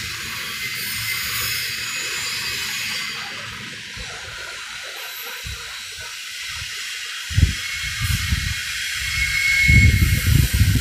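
Union Pacific double-stack intermodal freight train rolling past, a steady hiss of the cars on the rails. From about seven seconds in, low thumps and buffeting grow louder.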